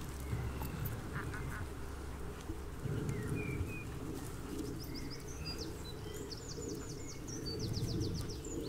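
Outdoor ambience: a low, steady rumble with small birds chirping. About halfway through, a bird sings a fast trill of short, high, falling notes.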